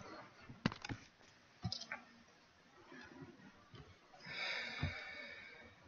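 Quiet room with a few faint, scattered clicks and a short soft hiss a little past four seconds in.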